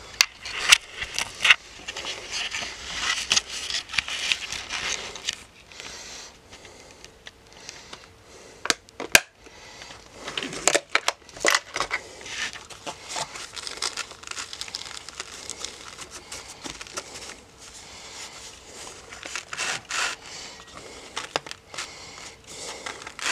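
Handling noise from a fabric tool roll and a plastic bit case: cloth rustling and crinkling with scattered sharp plastic clicks and taps, a few clustered about nine to twelve seconds in and again near twenty seconds.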